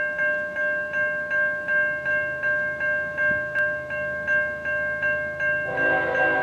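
Railroad grade crossing bell ringing in a steady rhythm, about two and a half strokes a second. Near the end, the horn of the approaching GE ES44AC lead locomotive starts sounding for the crossing, a held multi-note chord that covers the bell.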